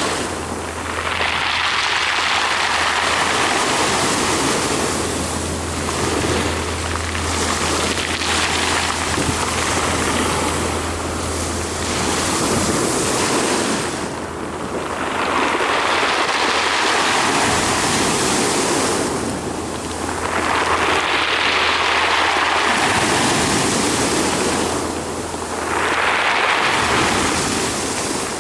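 Sea waves washing in and breaking, the rushing noise swelling and falling back about every five to six seconds. A low steady hum runs underneath for the first half and returns briefly later.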